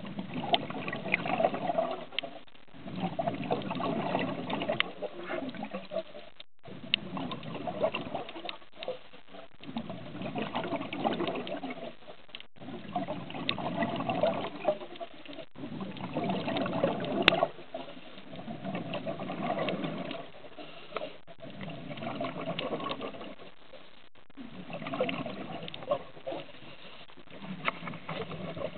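Underwater sound picked up through a camera's waterproof housing: muffled bubbling and crackling water noise that comes in surges every two to three seconds, breaking off briefly now and then.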